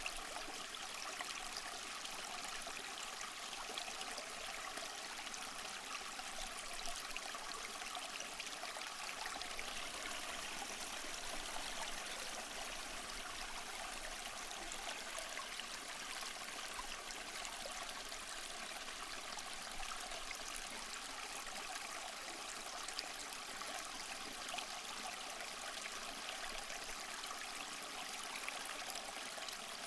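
Small waterfall running steadily over mossy rocks, a constant splashing and trickling rush of water.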